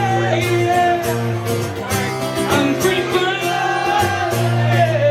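Live country-rock band music: a male singer over electric guitar, bass and drums, heard through the room's reverberation.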